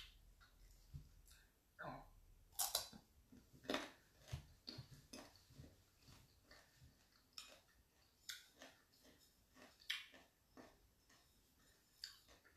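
Raw mango being bitten and chewed: a series of short, irregular crisp crunches, with quiet between them.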